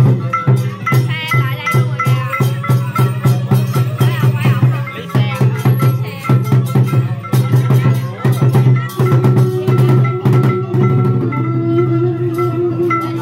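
Traditional Khmer percussion ensemble playing live: hand drums and small hand cymbals struck in fast, steady strokes over a sustained low tone. A held higher note joins about nine seconds in.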